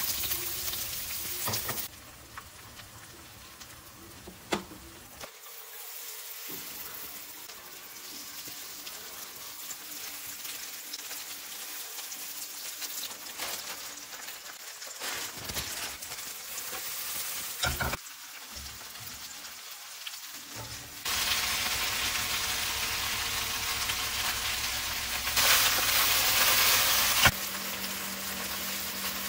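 Food sizzling in hot oil. Sliced green onions hiss as they hit the oil in a nonstick pan, then mushroom and vegetable pancakes fry on a ridged grill pan. The sizzle is loudest at the very start and again over the last several seconds, with a few sharp clicks in between.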